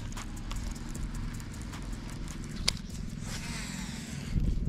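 Footsteps clopping on the wooden boards of a footbridge, with a baitcasting reel being cranked.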